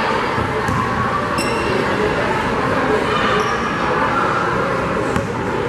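Gymnasium din during a basketball game: steady crowd and bench chatter echoing in the hall, with a brief high-pitched chirp about a second and a half in and a fainter one a couple of seconds later.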